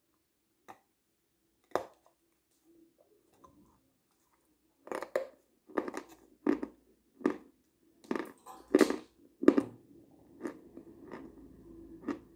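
Close-miked wet mouth sounds of eating soft strawberry yogurt: lip smacks and sucking from the cup. A couple of isolated smacks come first, then from about five seconds in a quick run of sharp smacks, roughly two a second, tapering off near the end.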